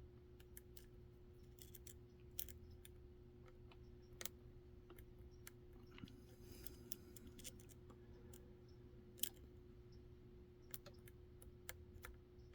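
Faint, scattered clicks of a lock pick and tension tool working the pin stack of a Kaba cylinder lock fitted with serrated and spool security pins, with a few sharper ticks about two, four and nine seconds in.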